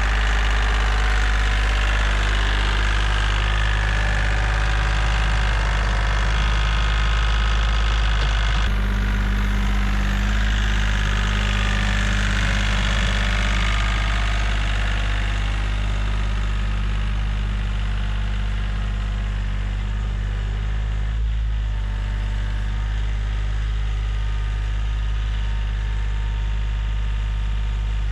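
Diesel tractor engine running steadily at idle, with a sudden change in tone about nine seconds in.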